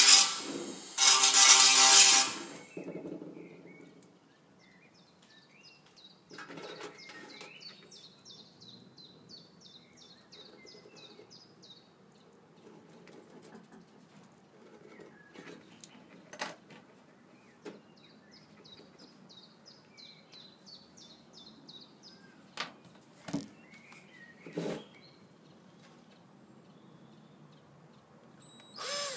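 A Black+Decker cordless drill drilling through the thin tin wall of an olive oil can in a short burst near the start and again briefly near the end. In between, a bird chirps in quick runs of high repeated notes, with a few sharp clicks and knocks of the can and tools being handled.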